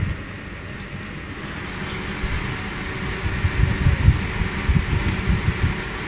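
Homemade 12-volt table fan running after being switched on, blowing a steady rush of air, with low gusts of wind buffeting the microphone from its airflow.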